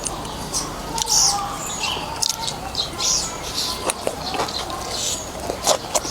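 Close-up eating sounds of a person chewing and slurping noodles in beef soup: wet mouth clicks and smacks at irregular intervals, with short slurps.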